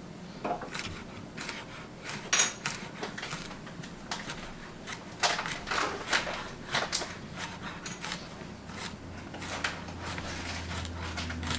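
Chef's knife chopping garlic on a plastic cutting board: irregular knocks of the blade striking the board, a few a second.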